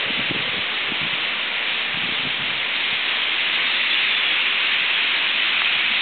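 A huge winter roost of European starlings, thousands of birds calling at once and blending into a dense, steady hiss that grows a little louder about halfway through.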